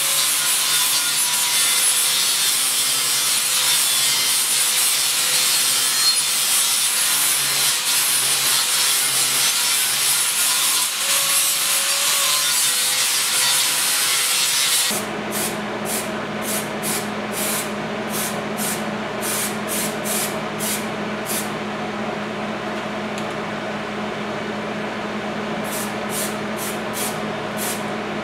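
Angle grinder grinding a small steel piece, a loud steady grinding that stops abruptly about halfway through. Then an aerosol spray can hisses in a series of short bursts over a low steady hum.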